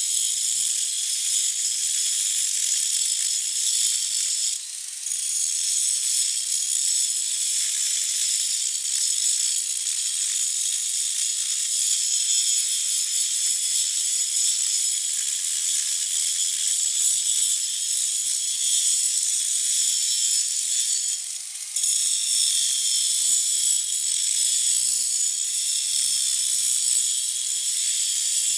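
Grinder running and grinding into a steel hydraulic cylinder tube, a steady high-pitched whine with a grinding hiss, cutting out a crack ahead of welding. It eases off briefly about five seconds in and again about twenty-two seconds in.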